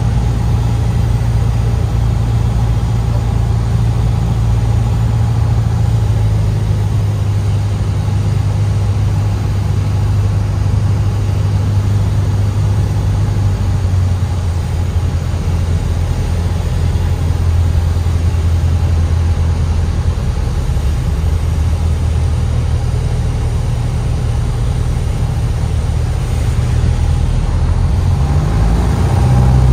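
Single-engine light aircraft's piston engine droning steadily, heard from inside the cockpit during landing. About halfway through the drone drops to a lower pitch as power comes back on the runway, and near the end it rises again.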